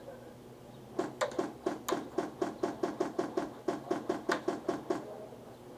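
A fast, even run of sharp clacks from airsoft fire, about five a second, starting about a second in and lasting about four seconds.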